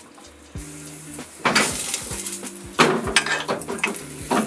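Kitchen utensils clattering against a frying pan a few times, with light sizzling, over background music.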